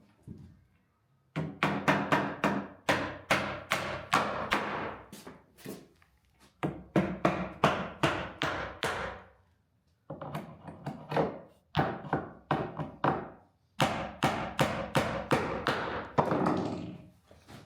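Hammer blows on solid oak parquet boards: sharp knocks with a short ring, about two to three a second, in runs broken by a few brief pauses, as the boards are nailed down.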